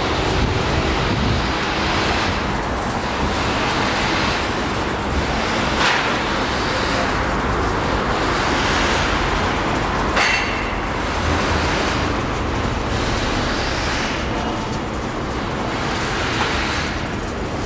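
Steady city traffic noise, cars and trucks passing on a busy road, with two sharp knocks about six and ten seconds in.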